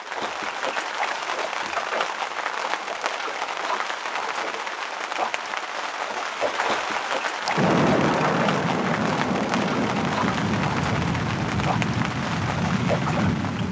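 Heavy rain pattering on an open wooden boat and its canvas cover, a dense hiss full of small drop impacts. About halfway through a deep low rumble comes in suddenly and carries on under the rain.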